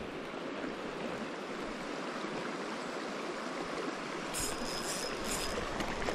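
Fast, shallow mountain river rushing over a stony bed: a steady, even rush of water. A few brief high-pitched sounds come about four to five seconds in.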